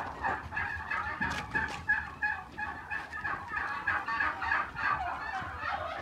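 A flock of turkeys gobbling and calling, a dense stream of short repeated calls several a second.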